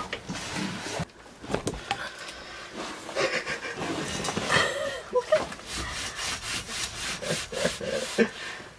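Rustling, scraping and knocking handling noises inside a truck cab, with a run of quick scratchy strokes in the second half and a few brief murmured voice sounds.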